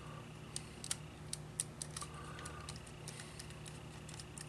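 Scattered small plastic clicks and taps from a Sony WM-FX52 Walkman being handled and its buttons and switches pressed, about a dozen at irregular intervals, over a low steady hum.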